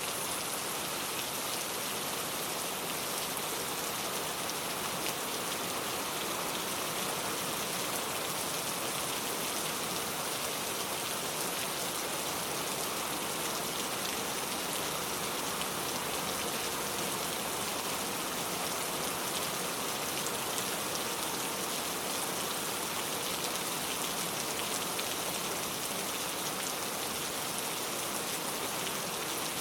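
Steady rain, an even hiss with a fine patter of drops.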